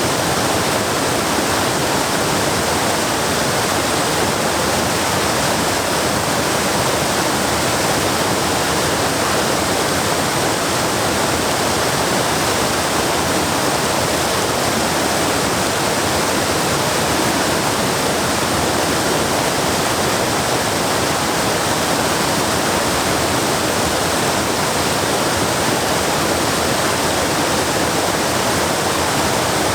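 Waterfall, water pouring and splashing into a pool in a steady, unbroken rush, loud and close.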